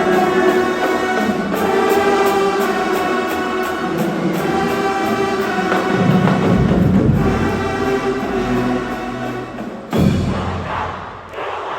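High school marching band playing, brass holding full chords, with deep low brass joining about six seconds in and a loud ensemble hit about ten seconds in, then drums carrying on.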